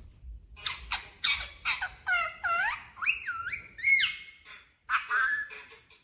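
Pet parrot giving a quick run of short calls with sharp rising and falling pitch glides, starting about half a second in, then one more short burst after a brief gap near the end.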